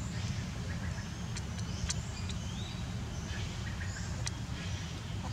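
Outdoor woodland ambience: a steady low rumble under scattered bird chirps and a few short, sharp high calls, one rising in pitch about two seconds in.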